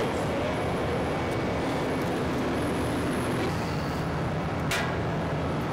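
Steady drone of a running air blower in a blower enclosure: an even low hum with a faint high whine above it. A brief hiss sounds near the end.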